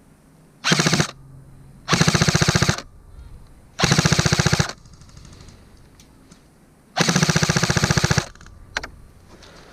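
Airsoft rifle firing on full auto in four loud bursts: a short one about half a second in, two of close to a second each, and a longer one of about a second and a quarter. Each burst is a rapid, even rattle of shots, and a single sharp click follows near the end.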